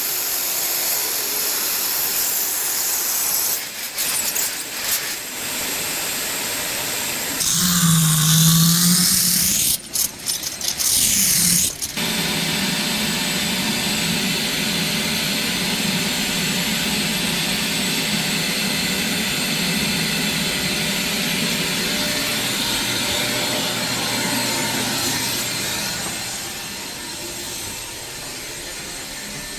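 A power tool running steadily under load, with a stretch of changing, sweeping pitch about a quarter of the way in, and easing off somewhat near the end.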